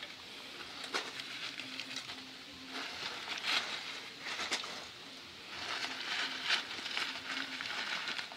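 Crumpled paper crinkling and rustling as it is handled and stuffed in among split wood kindling, in three bouts.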